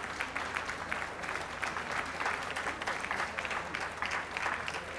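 An audience clapping steadily.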